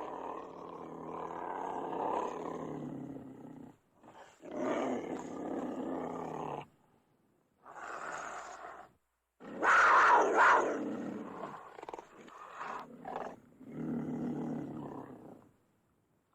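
Cougar snarling and roaring in a series of about five long calls with short breaks between them. The loudest comes a little past the middle.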